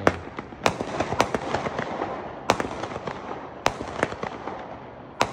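A 200-gram consumer fireworks cake, World Class Neon Nightmare (36 shots), firing. About six loud bangs come at irregular intervals, roughly one a second, with fainter pops and crackle in between.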